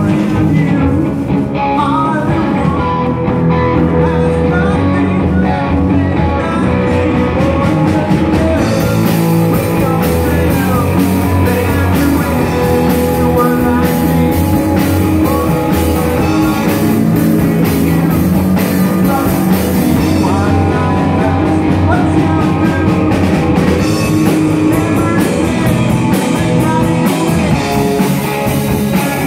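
Live rock band playing loud: electric guitar, bass guitar and drum kit, with a sung vocal. The cymbals get brighter for about ten seconds in the middle.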